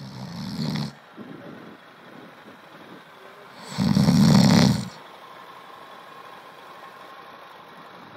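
A man snoring: two loud, rasping snores about four seconds apart, the second one louder.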